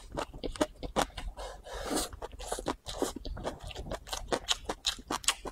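Close-up eating sounds: a person chewing a mouthful of stir-fried rice noodles with vegetables and meat, a rapid, irregular run of wet crunching and smacking clicks, with one longer rushing sound about two seconds in.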